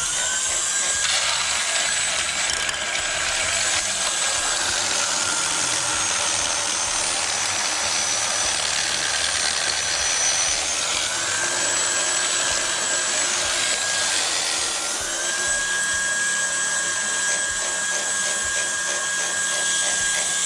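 KitchenAid Artisan stand mixer motor running at speed 6–8, driving the slicer/shredder attachment's fine shredding drum as it grates hazelnuts into meal: a steady motor whine over a gritty grinding rasp. The whine drops in pitch for a few seconds about halfway through, and again briefly later.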